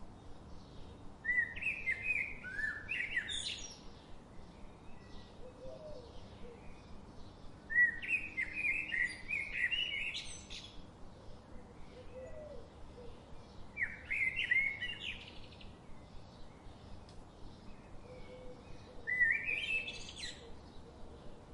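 A songbird singing four short, warbled phrases about six seconds apart, each climbing in pitch towards its end, over faint background chirping.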